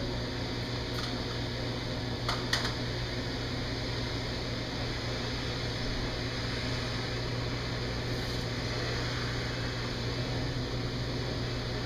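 Steady hum and hiss of running machinery, with two short clicks about two and a half seconds in.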